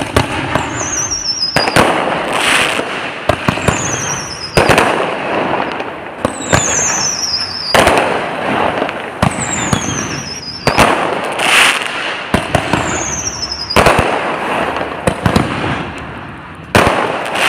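Consumer artillery ball shells fired in succession: sharp launch and break bangs, crackling, and whistling tails that fall in pitch, about five whistles roughly three seconds apart.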